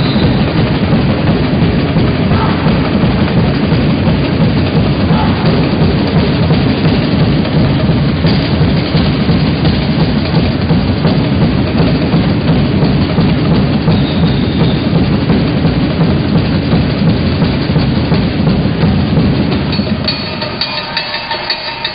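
Loud, drum-heavy music, dense and muddy throughout, the low end dropping away for a moment near the end.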